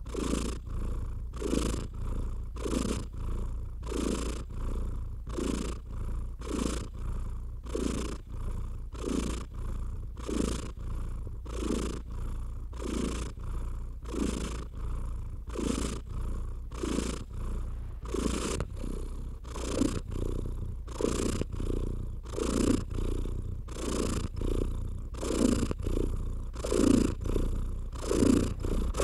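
Domestic cat purring steadily, pulsing evenly about three times every two seconds, growing slightly louder near the end.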